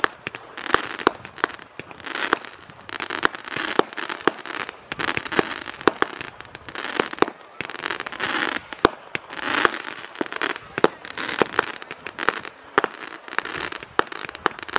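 Fireworks going off: an irregular string of sharp pops and bangs, several a second, with crackling and hissing between them.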